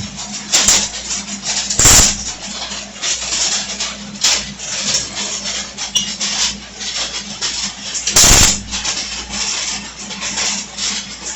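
Welding arc crackling in irregular bursts over a steady low hum, with two louder sharp bursts, one about two seconds in and one later on.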